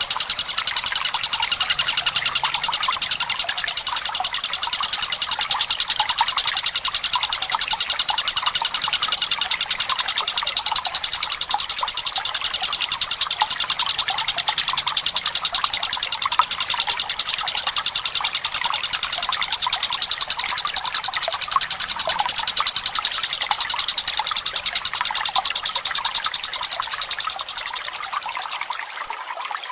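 Tengkek buto, a kingfisher, calling in a long rapid rattling trill over a steady trickle of running water. The trill eases off a little near the end.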